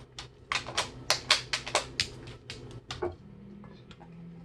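A dog's paw clicking and tapping at a handheld plastic light switch: a quick run of sharp clicks, about four a second, that stops about three seconds in.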